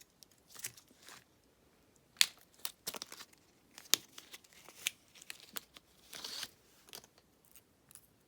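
Packaging being handled and opened: crinkling and rustling, broken by sharp clicks and snaps, the loudest about two and four seconds in.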